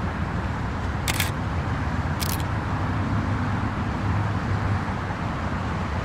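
Steady rumbling noise like road traffic, with no music or singing. A short hissing burst comes about a second in and another a second later.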